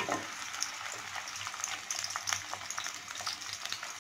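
Chopped onion sizzling and crackling in hot oil in an aluminium karahi, stirred with a slotted wooden spatula that gives short clicks and scrapes against the pan. The onion is being fried toward light brown.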